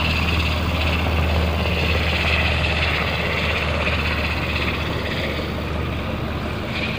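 Sikorsky UH-60 Black Hawk helicopter flying past, its rotors and turbine engines giving a steady drone that slowly fades as it moves away.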